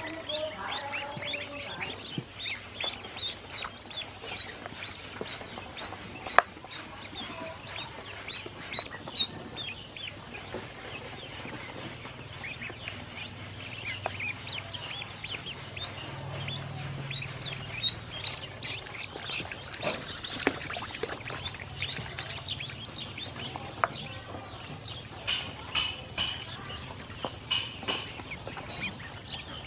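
A brood of ducklings peeping continually, many short high peeps overlapping one another.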